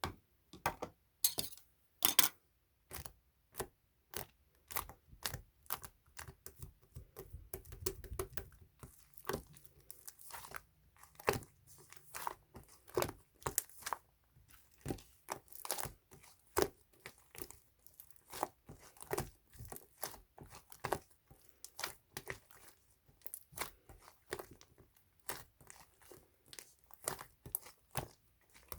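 Opaque slime being squeezed and stretched by hand, giving a continual irregular run of sharp pops and clicks, several a second.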